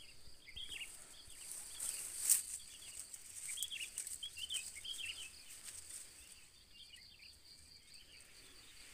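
Scattered short bird chirps over a steady high-pitched insect drone, with one brief sharp rustle about two seconds in.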